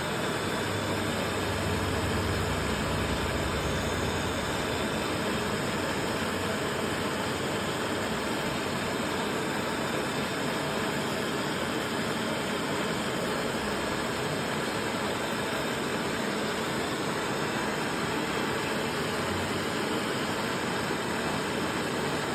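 Handheld gas torch burning with a steady, even rushing hiss while its flame heats the tip of an oxygen sensor for a bench test.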